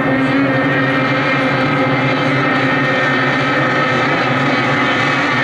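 500cc modified two-stroke racing outboard engines on several hydroplanes running together in a race, a loud steady blend of engine notes that drifts slightly in pitch.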